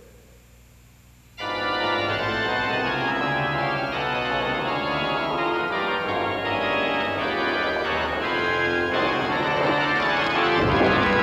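Organ music that starts suddenly about a second and a half in, after a brief quiet pause, with full sustained chords that grow a little louder near the end.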